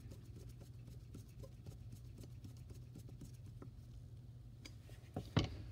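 Faint, scattered small clicks of a screwdriver turning the pilot jet into a Mikuni carburetor body, over a steady low hum. A couple of louder knocks come near the end.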